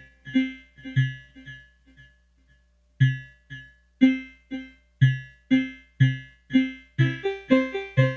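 Expressive E Osmose synthesizer playing an electric-piano-like patch: short struck notes with a low bass note, about two a second. They die away about two seconds in, start again after a short gap, and come faster near the end.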